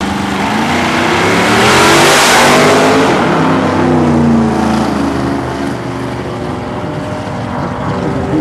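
Drag radial race car making a full-throttle pass down a drag strip. The engine is loudest about two seconds in, then its pitch shifts and it fades as the car pulls away down the track.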